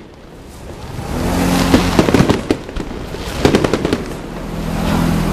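Aerial fireworks crackling and popping overhead. A brief lull at the start gives way to swelling clusters of rapid crackles, about two seconds in and again about three and a half seconds in.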